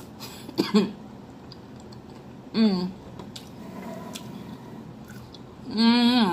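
A woman making three short closed-mouth "mmm" sounds of enjoyment while chewing a mouthful of fried chicken, the last one longer with a wavering pitch; quieter chewing in between.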